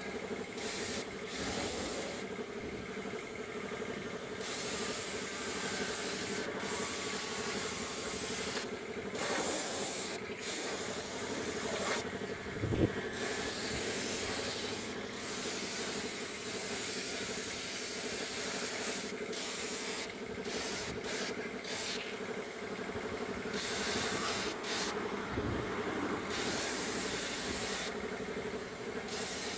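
Gravity-feed compressed-air spray gun hissing as it sprays yellow paint, the hiss starting and stopping in stretches of one to a few seconds as the trigger is pulled and released. A steady machine hum runs underneath, and a single sharp knock comes about halfway through.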